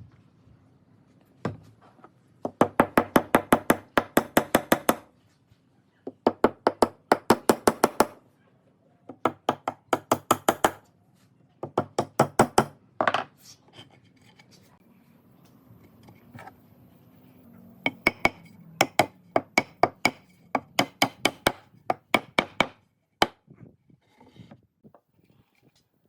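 Quick runs of sharp knocks, about six a second, each run lasting one to three seconds and separated by short pauses.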